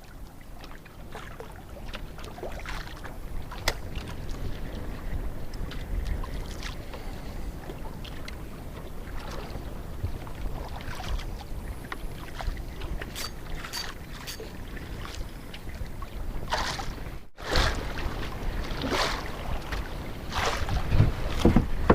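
Strong wind buffeting the microphone over water lapping against a small sampan, with scattered light knocks and splashes.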